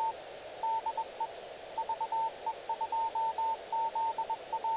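Morse code (CW) as a single steady tone keyed on and off in dots and dashes, over a steady hiss.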